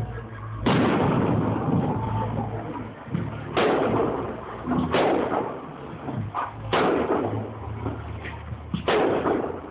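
Firework going off in a series of five sharp bangs at uneven gaps of one to three seconds, each one fading out over about a second.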